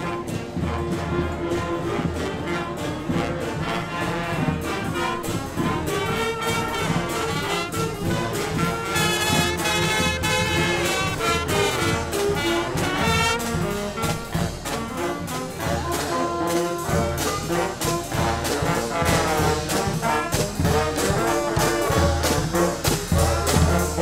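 Street marching band playing a tune: brass horns with clarinet and saxophone over a steady drum beat.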